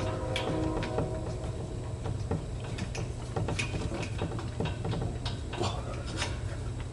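Scattered faint clicks and taps of hand tools working a ground wire at the grounding screw of a metal electrical box, over a steady low hum.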